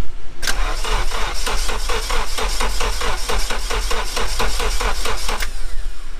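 Starter cranking a Nissan KA24DET turbocharged inline-four over in a start attempt after a replacement ECU and distributor were fitted to cure a no-spark fault: a rhythmic churn of about four to five compression strokes a second for about five seconds, then it stops abruptly.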